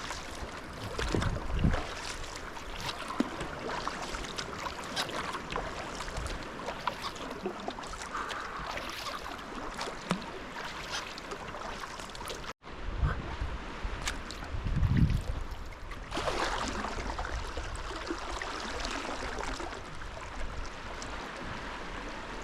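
Sea kayak paddle strokes splashing, with water gurgling and lapping along the hull, and a few low thumps. The sound drops out for an instant about halfway through.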